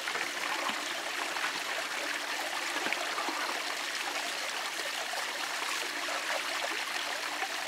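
Water from a garden hose steadily splashing and trickling into a stone fountain basin as it is refilled.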